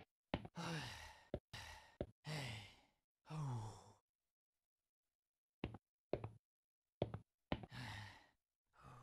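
A cartoon character's voice letting out a series of heavy, weary sighs, each one falling in pitch, with a silent pause and a few small clicks about halfway through before another sigh near the end.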